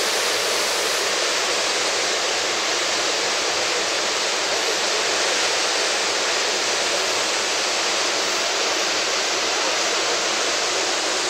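Murchison Falls: the Nile plunging through a narrow rock gorge, a loud, steady rush of falling water.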